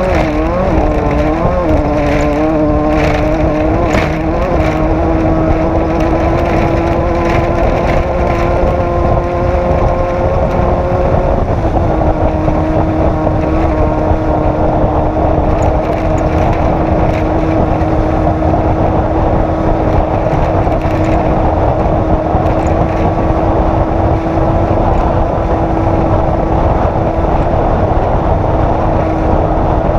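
Off-road race vehicle's engine running hard and steady. Its note wavers in the first few seconds, climbs slowly, dips slightly about twelve seconds in, then holds level, with a few knocks near the start.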